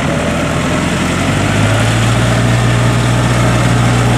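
Engine of a homemade tracked rice-field machine running steadily as it drives through a flooded, muddy paddy. Its low, even hum grows stronger about a second and a half in.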